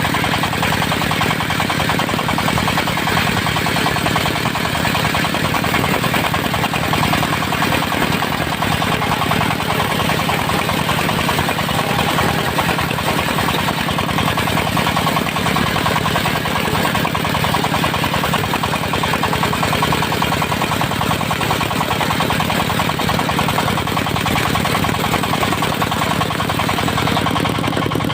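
Diesel engine of a portable circular sawmill running steadily under a continuous fast pulsing drone, with the spinning saw blade adding a higher rushing sound.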